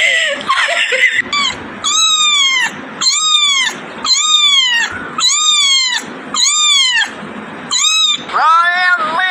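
Young kitten mewing: six high calls about a second apart, each rising and then falling in pitch, followed by a lower, longer cry near the end.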